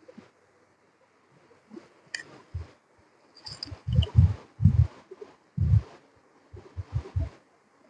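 Hand razor scraping through lathered moustache hair in a series of short strokes, about a dozen, starting a couple of seconds in, each with a dull bump.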